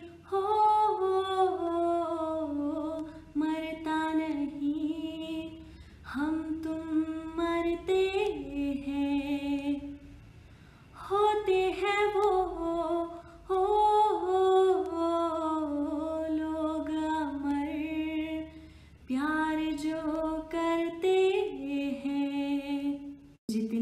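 A woman singing a Hindi film song a cappella, in long held phrases with short breaks between them.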